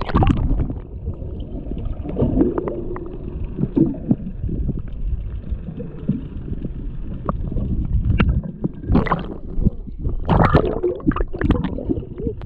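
Water gurgling and sloshing against a small boat's hull under a low, uneven rumble, with a few short knocks.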